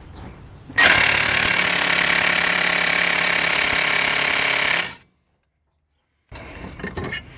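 Cordless impact wrench hammering a Torx bit clamped in a bench vise: a loud, steady, rapid hammering for about four seconds that stops abruptly, followed near the end by quieter handling noise. The bit takes the full hammering without failing.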